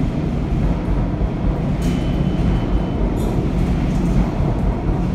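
Loud, steady rumble of a subway train in the station, with a brief thin high squeal about two seconds in.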